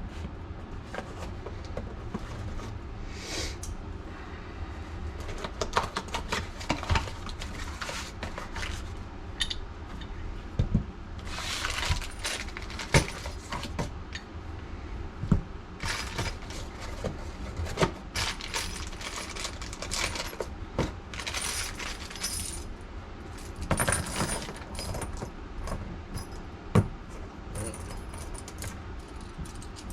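Hands-on work with metal tools and parts: irregular metallic clinks and rattles, with several short hissing, scraping bursts, over a low steady hum.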